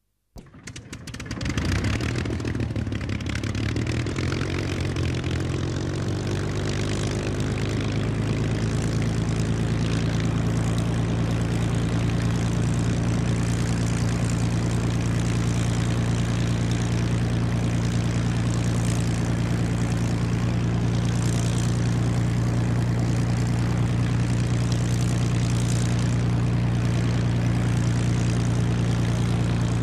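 Propeller aircraft engine running at a steady, even speed. It comes in suddenly just after the start and settles within about two seconds.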